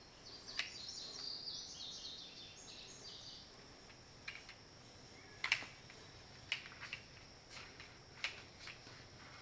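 Faint scattered clicks and taps of a power-tool attachment being handled and turned over, with faint bird chirping in the first few seconds.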